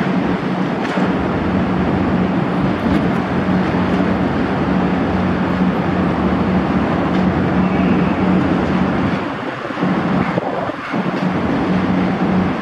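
A boat engine drones steadily under a rush of wind and water noise, with a constant low hum throughout.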